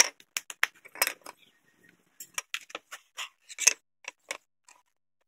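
Small wooden pieces being set down and handled on a wooden workbench: a run of sharp clicks and taps, a cluster in the first second and another from about two seconds in, the loudest one near the end.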